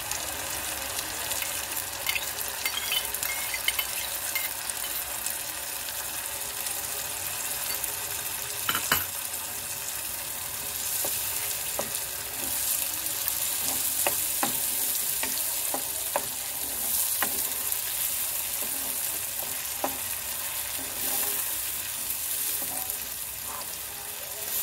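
Wet tomato, garlic, ginger and green-chilli paste sizzling in hot oil in a kadhai, stirred with a wooden spatula. The spatula knocks and scrapes against the pan now and then, with the sharpest knock about nine seconds in.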